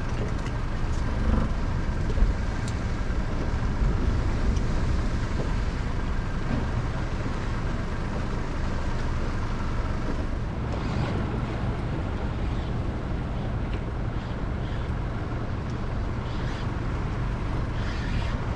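Steady wind rumble on the microphone aboard a small boat, with a faint constant hum underneath and a few light clicks in the first few seconds.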